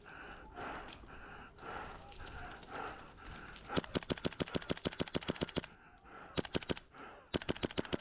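KWA MP7 airsoft gun running on HPA, firing on full auto: a long rapid burst of about ten shots a second starting about four seconds in, then two short bursts near the end. Fainter scattered shots come before it.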